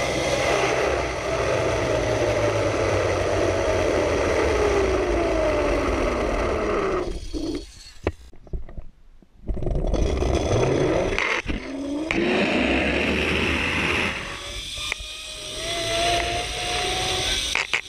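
Zip-line trolley pulleys whining along a steel cable, with rushing wind on the microphone. The whine falls in pitch as the rider slows, drops out for a moment around eight seconds in, then rises again as the next run picks up speed.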